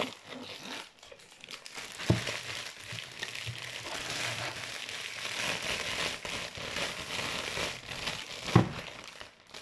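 Crinkling and rustling of a large printed wrapper being pulled off a chocolate Easter egg, with two soft thumps, about two seconds in and near the end.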